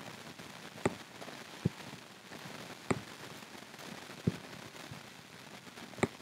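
Computer mouse clicks: five short clicks spaced a second or more apart, some sharp and bright, others duller and lower, over a steady faint hiss.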